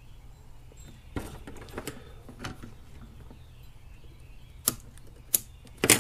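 Small scissors snipping the wrapping thread on a fishing rod: three sharp clicks in the last second and a half, the last the loudest, after a few soft handling clicks over a low steady hum.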